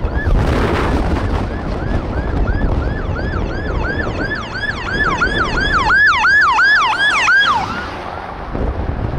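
Emergency vehicle siren in fast yelp mode, about four rising-and-falling sweeps a second, growing louder as the vehicle approaches and cutting off suddenly about seven and a half seconds in. Wind rumbles on the microphone underneath.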